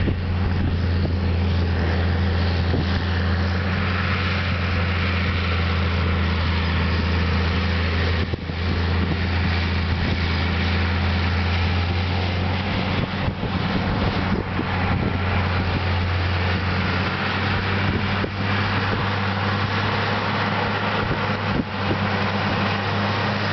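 Diesel engine of a John Deere four-wheel-drive articulated tractor on dual wheels, running under steady load as it pulls a tillage implement through stubble. A loud, steady low drone that holds its pitch throughout.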